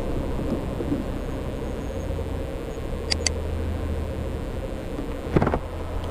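Motorcycle engine running steadily at low speed as the bike rolls slowly up to a fuel pump, with two short high ticks about three seconds in and a brief knock a little after five seconds.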